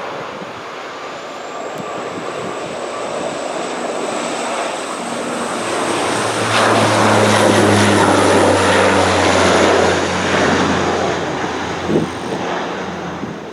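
Bombardier Dash 8 Q400 twin-turboprop airliner at go-around power passing by, growing louder to a peak with a steady low propeller drone and a high whine, then fading. A brief thump near the end.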